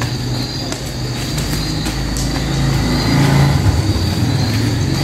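An engine running steadily with a low hum, swelling a little about three seconds in.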